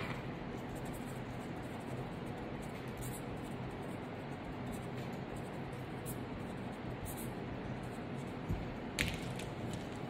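Felt-tip marker scratching on notepad paper as a line of words is written, over a steady hiss. A couple of light knocks near the end as the pens are handled.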